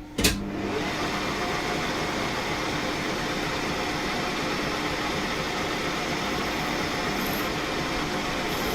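Smart & Brown metal lathe switched on with a click about a quarter second in, then running steadily at a higher spindle speed with an even mechanical whirr and a faint steady hum.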